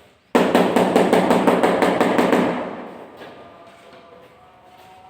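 A sudden, loud, rapid series of knocks, about seven a second for some two seconds, then fading away.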